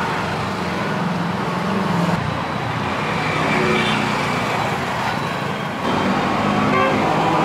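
Road traffic noise, with motor vehicle engines running past; it gets a little louder about six seconds in.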